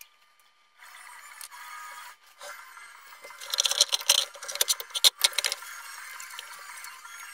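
Handling noise from hands working over an open valve-amplifier chassis and its wiring: a cluster of scraping and rattling clicks lasting about two seconds in the middle.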